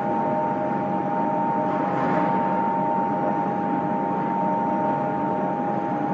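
Steady drone of sawdust briquette-making machines (screw-press extruders) running, with a constant whine over a dense hum. A brief rise in hiss comes about two seconds in.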